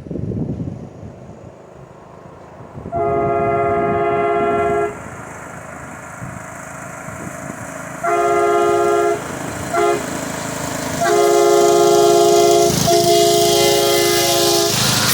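Air-powered train horn blasting a steady multi-tone chord: a blast of about two seconds, a shorter one-second blast, a brief toot, then two long blasts almost back to back.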